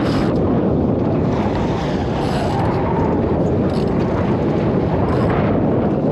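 Steady wind rushing over the microphone on a boat at sea, with the wash of water and boat noise underneath.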